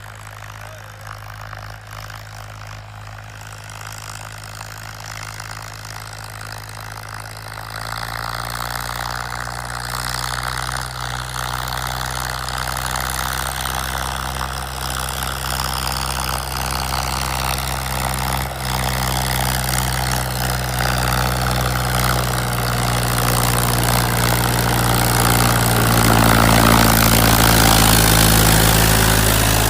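Digitrac PP43i tractor's diesel engine running steadily under load while pulling a 13-tine cultivator. It grows steadily louder, with jumps in level about eight seconds in and again near the end.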